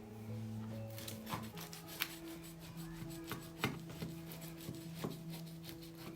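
A knife cutting through a crisp, oven-baked sandwich crust: scraping and crunching with several sharp clicks, over background music with long held notes.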